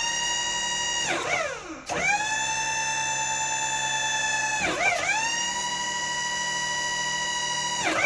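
Hydraulic pump of a Wood-Mizer LT40 Super sawmill whining steadily as a hydraulic function is run back and forth. The whine sags in pitch and recovers twice, about a second in and about five seconds in.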